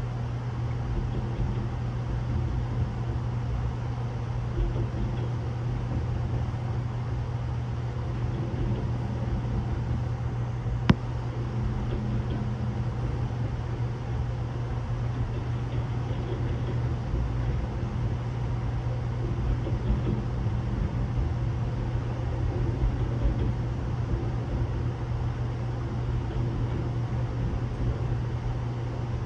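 Double-stack container freight train rolling past, heard from inside a standing passenger sleeper car: a steady low rumble, with one sharp click about eleven seconds in.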